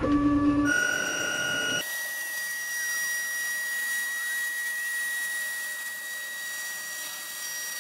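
CNC router's spindle motor running at high speed with a steady, high-pitched whine. It steps up in pitch twice in the first couple of seconds, then holds steady.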